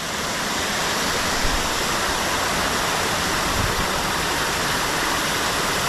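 Steady rushing and splashing of falling water from water-park fountains and sprays.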